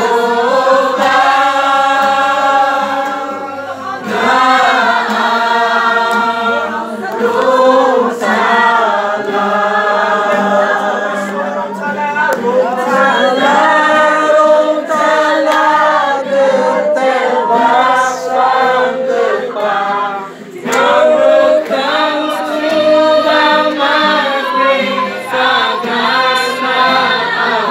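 A group of voices singing a worship song together, in long held phrases with short breaks between them.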